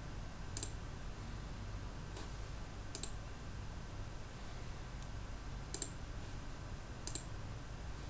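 Computer mouse clicking: about five sharp clicks spread over several seconds, most of them quick double clicks, over a steady low hum.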